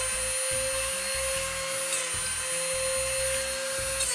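Dremel rotary tool spinning a grinding stone with a steady high whine, sharpening steel bandsaw blade teeth. Brief grinding rasps come as the stone strikes a tooth, about two seconds in and again near the end.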